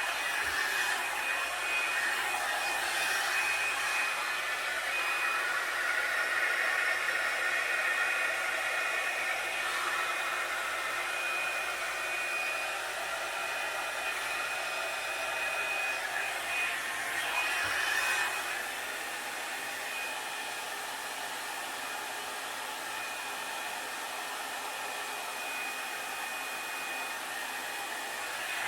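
Revlon One-Step blow dryer brush running, a steady rush of air with a steady high whine over it. It turns a little quieter about two-thirds of the way through.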